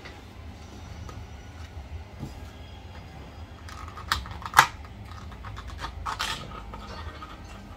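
Plastic takeaway container lid being pried open by hand: crackling plastic with one sharp snap about halfway through, then more crackling a second or so later, over a low steady hum.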